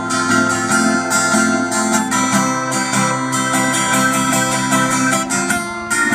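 Acoustic guitar being strummed in a steady rhythm, with chord changes about two seconds in and again near the end.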